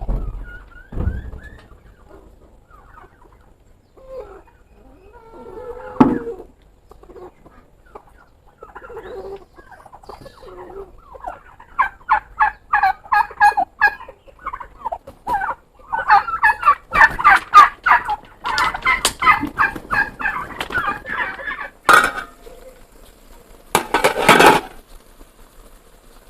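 Farmyard fowl calling in long, rapid runs of chattering calls that grow denser through the middle. There are a couple of sharp knocks and a short noisy rush near the end.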